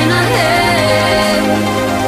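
Electronic music: sustained synth chords over a steady held bass note, with one sliding pitch about half a second in.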